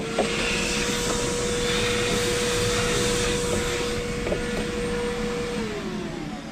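Vacuum cleaner run to suck up drilling debris: it switches on at the start and runs with a steady whine and airflow hiss, then is switched off and winds down, its pitch falling, near the end.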